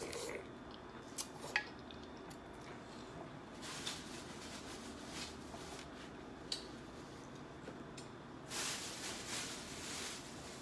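Eating sounds from sauce-covered snow crab: meat sucked out of a crab leg, with scattered small clicks of shell and dishes. A couple of seconds of rustling come near the end.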